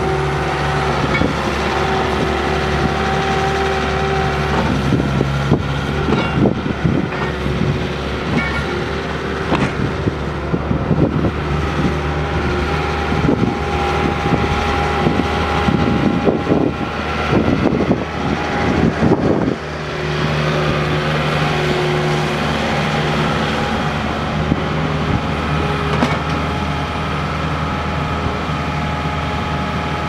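Kubota diesel engine of a 2007 Bobcat S185 skid steer running steadily while the machine is driven, with irregular clattering through the middle stretch. About two-thirds of the way in, the clatter stops and the engine note shifts.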